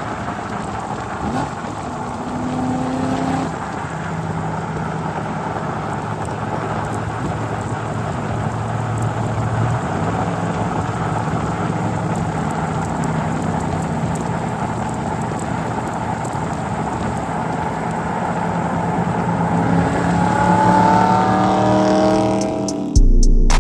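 Car driving with steady engine and road noise; the engine revs up, rising in pitch, near the end.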